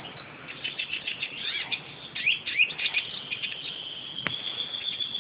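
European goldfinch calling in short, quick high chirps and twitters, loudest around two and a half seconds in.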